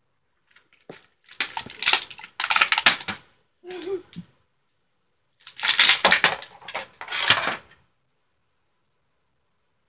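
A Littlest Pet Shop toy's clear plastic packaging crinkling and crackling as hands pull and pry at it, in three bursts of a second or two each, then stopping.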